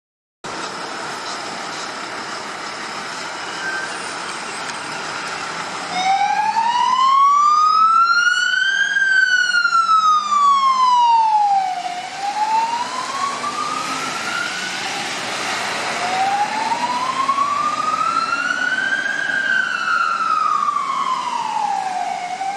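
Fire engine siren sounding a slow wail, starting about six seconds in and rising and falling about every six seconds over road and engine noise. It is loudest on the first sweep, then a little fainter, and one rise is cut short before the wail starts again.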